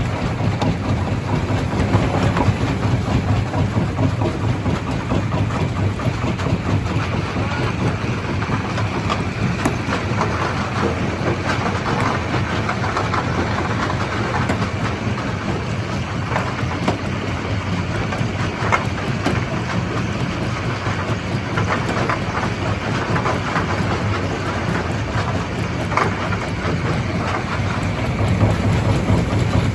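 Stone crusher running with a steady low machine drone, and scattered sharp cracks and clatter of rock being broken.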